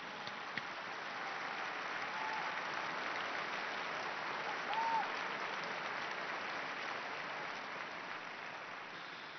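Large crowd applauding, building over the first couple of seconds and tapering off near the end, with a short high call rising above the clapping about five seconds in.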